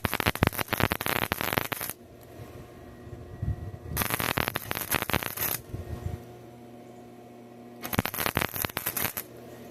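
Arc welding: the arc crackles and sputters in three bursts of about one and a half to two seconds each, with short pauses between.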